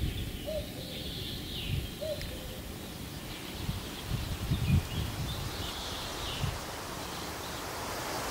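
A bird in woodland gives a low two-note call that falls in pitch, twice, about a second and a half apart. Fainter songbirds call higher up. Gusts of wind rumble on the microphone, loudest about halfway through.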